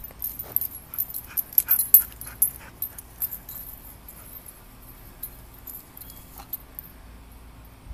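Belgian Malinois whimpering and yipping in short cries, among quick metallic jingling and clinking, mostly in the first three seconds, then sparser.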